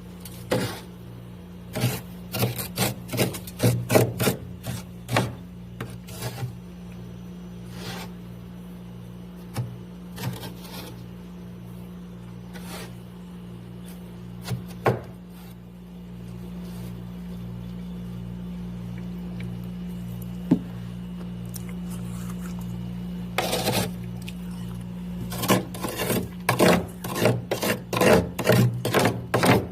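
Built-up frost ice in a freezer being scraped and broken away in short rasping strokes. The strokes come thick and fast in the first few seconds and again through the last six, with only scattered strokes in between, over a steady low hum.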